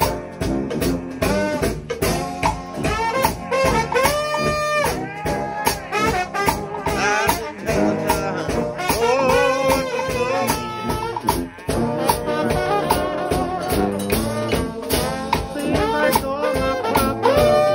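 A gospel shout band led by trombones, with sousaphone, drum kit and hand cymbals, playing; the trombones slide between notes over a steady drum beat.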